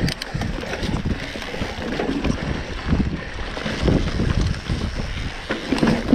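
Mountain bike riding fast down a dirt forest trail: wind buffeting the camera microphone, with tyres rumbling over the ground and sharp knocks and rattles from the bike over bumps, the sharpest near the end.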